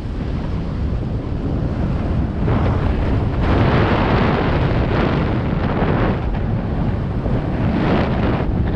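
Wind buffeting the camera microphone while moving, a low rumbling rush with a brighter hiss that swells for a few seconds in the middle and again near the end.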